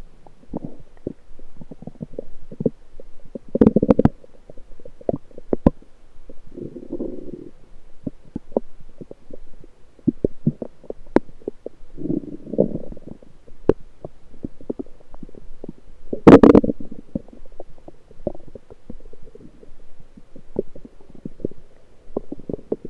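Lower intestinal gurgling (bowel sounds) picked up through an electronic stethoscope pressed to the abdomen. It comes as four bursts of low gurgling a few seconds apart, the loudest about two-thirds of the way through, with many short pops and clicks in between.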